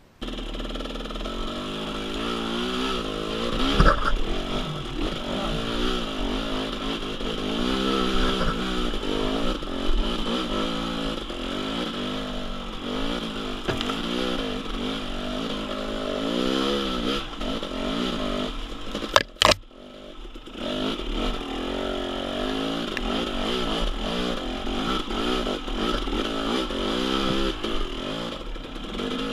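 KTM 300 XC-W TPI two-stroke dirt bike engine revving up and down over and over under load. There is a sharp knock about four seconds in and a brief drop in sound about two-thirds of the way through.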